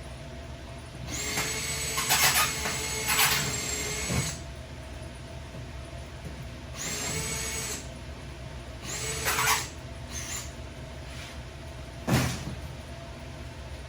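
Power drill running in three bursts, the first about three seconds long and the others shorter, with a sharp metallic knock near the end.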